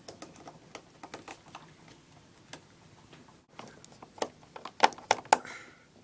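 Small screwdriver working the screws of a Mac's RAM access cover: irregular light clicks and ticks of the tool and cover, with a louder flurry of clicks about four to five seconds in.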